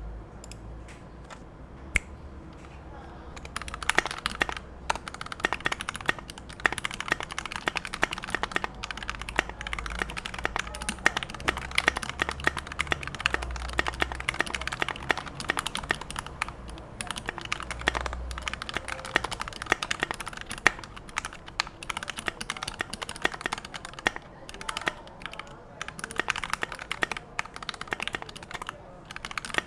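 Custom TOFU68 mechanical keyboard with lubed Gateron Yellow linear switches on a stainless steel plate, being typed on. A few scattered keystrokes come first, then fast, continuous typing from about three seconds in.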